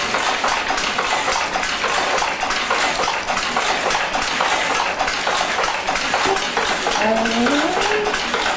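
Tweed loom running while weaving, a steady dense mechanical clatter of many rapid clicks and clacks. A short rising, voice-like tone comes in near the end.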